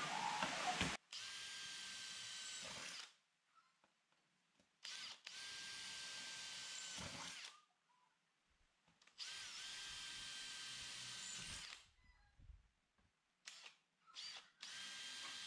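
Makita cordless drill boring holes through aluminium checker plate with a sharp bit. It runs in bursts with a steady motor whine: a louder, rougher first second, three runs of two to three seconds with short quiet pauses between, and a fourth run starting near the end.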